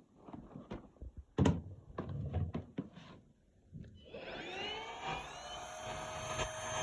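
A few handling clicks and knocks, then about four seconds in a cordless stick vacuum's motor switches on, its whine rising as it spins up and then running steadily.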